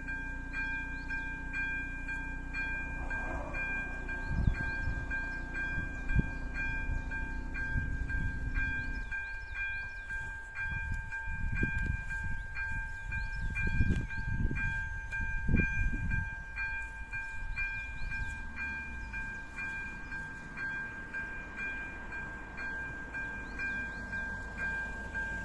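Electronic level-crossing bell of an AŽD 97 crossing ringing, an even ding about twice a second, while the half-barriers come down. A low steady hum stops about nine seconds in, and there are irregular low rumbles in the middle.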